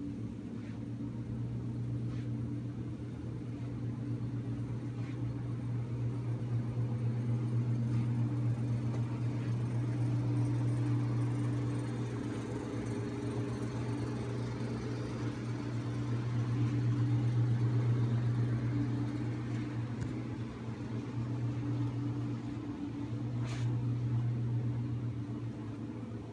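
Steady low mechanical hum that swells and fades slowly, with a few faint clicks.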